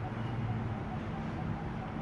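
Steady low hum of background noise, with no distinct events.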